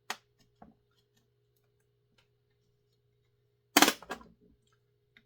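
Small clicks, then a single sharp clatter with a few lighter knocks after it, as chainsaw parts and hand tools are handled and set down during a teardown.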